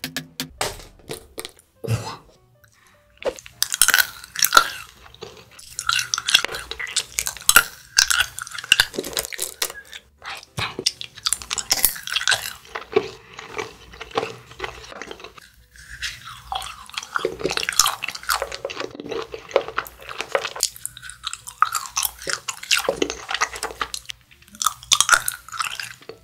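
A small mallet knocks on a hollow chocolate shell a couple of times in the first two seconds, then close-up crunching and chewing of the broken chocolate pieces.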